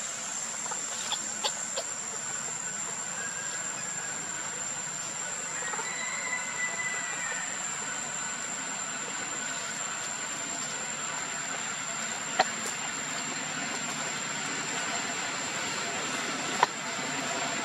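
Steady outdoor background hiss with a constant high thin whine. A few sharp clicks come through: a cluster in the first two seconds, one about twelve seconds in and one near the end. A faint short high call rises and falls about six seconds in.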